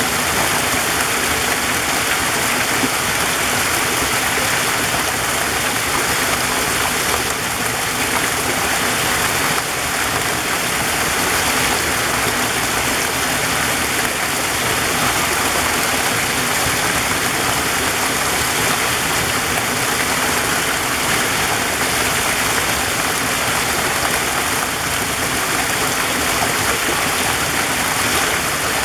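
Waterfall in a forest stream, water falling and flowing in a steady, even wash of noise.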